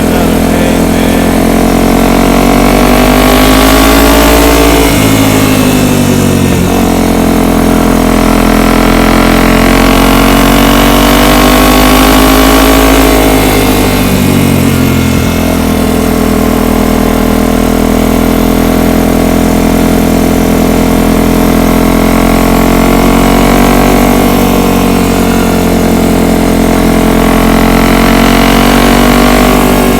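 ATV engine running under way, its pitch climbing as it speeds up and dropping suddenly twice, about five and fifteen seconds in, as it shifts gear. It then holds a fairly steady pitch with gentle rises and falls.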